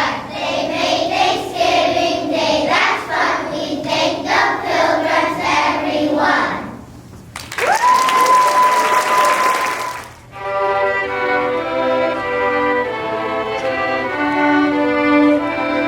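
Children's choir singing, ending about six seconds in; a burst of applause with a steady high whistle-like tone follows, and then a small string ensemble of violins starts playing.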